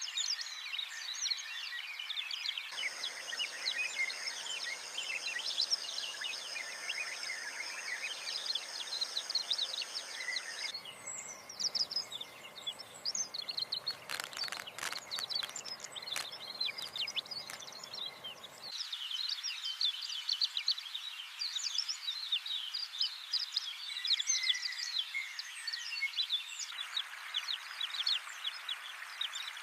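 Dense chorus of wild bird chirps and calls. A few seconds in, steady high-pitched tones join and run for several seconds. In the middle a string of sharp clicks sounds, and the background noise changes abruptly several times.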